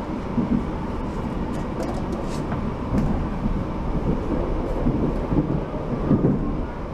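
Steady rumble and rattle of a moving passenger train, heard from inside the carriage.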